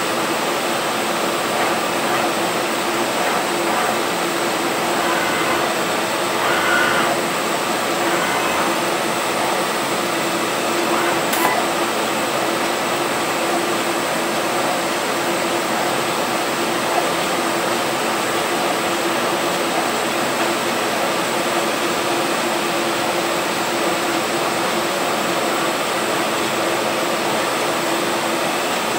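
Kongsberg MultiCUT flatbed cutting table running while its tool head cuts a flexible magnet sheet: a steady hiss of the table's vacuum hold-down with a constant low hum. A single sharp click about eleven seconds in.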